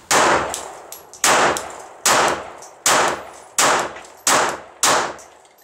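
Seven .380 ACP pistol shots from a Glock 42, fired one after another at a steady, fairly quick pace, a little under a second apart. Each shot has a short ringing decay.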